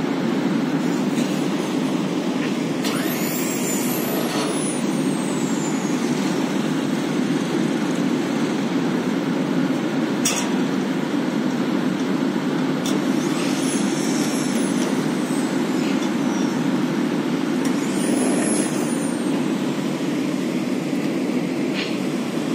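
Motorised roof ventilator running: a steady low rush of air from its fan. A faint high whistle rises and falls three times, and a single sharp click comes about halfway through.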